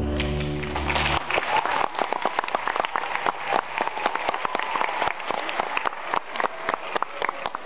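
A symphony orchestra holds a chord heavy in the double basses and cellos, which stops about a second in, and the audience breaks into applause.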